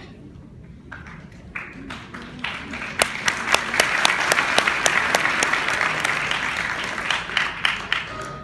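Audience applause: scattered claps about a second in swell into full applause, then thin out near the end.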